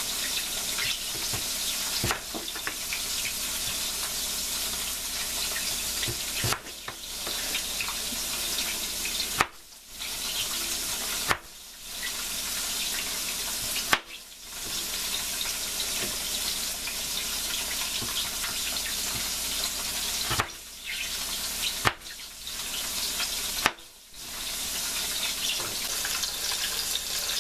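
Firm tofu frying in a pan of oil with a steady sizzle, broken off briefly several times. A few sharp knife chops on a plastic cutting board as sweet potato is sliced.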